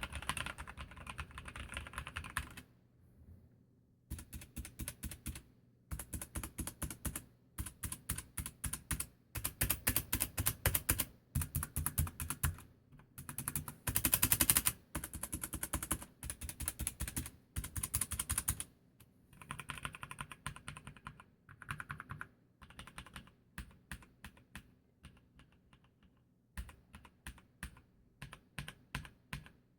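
Mechanical keyboard with Kailh Red linear switches being typed on in fast bursts of clacking keystrokes separated by short pauses. After a brief pause about four seconds in, the stabilized long keys are struck in repeated bursts, loudest in the middle, then lighter and sparser strokes toward the end.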